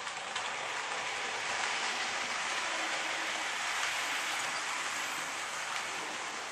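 OO gauge model train, a steam locomotive with a rake of coaches, running past on the layout's track: a steady whirring rush of wheels and motor that swells as the train passes closest and eases slightly near the end.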